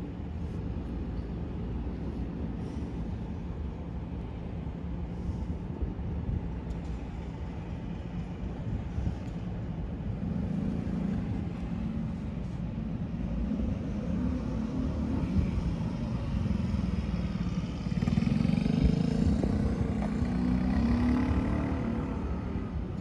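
Steady low engine rumble from a nearby motor vehicle, swelling louder twice, about ten seconds in and again near the end.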